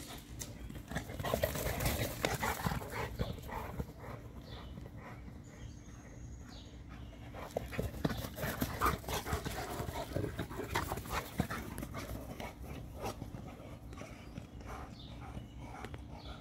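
Two large mastiff-type dogs, a Boerboel and a Serbian Defense Dog, playing rough: heavy panting, with irregular scuffles and quick footfalls of paws on grass.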